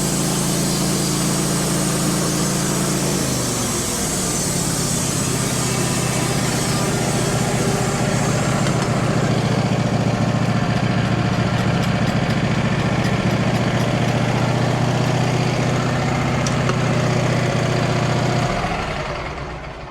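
Wood-Mizer LT15 band sawmill's engine running steadily under load as the blade saws through a black cherry log. Its pitch drops slightly a few seconds in, and the sound dies away near the end.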